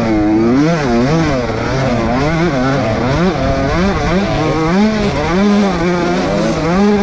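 Dirt bike engine being ridden, its pitch rising and falling about once a second as the throttle is opened and closed.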